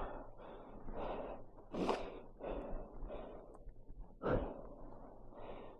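A man breathing hard in short, noisy puffs, out of breath after struggling with the motorcycle on a sandy hill.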